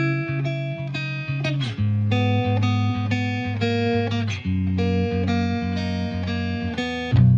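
Background music played on guitar: plucked notes in a steady rhythm, with a few sliding notes.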